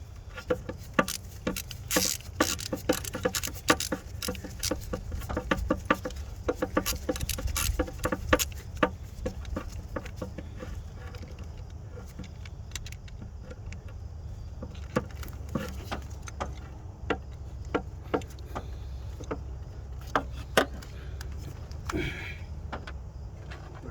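Small metal screws and a hand screwdriver clicking and ticking as the camshaft position sensor's screws are turned back in, quick and irregular for the first several seconds, then sparser. A steady low hum runs underneath.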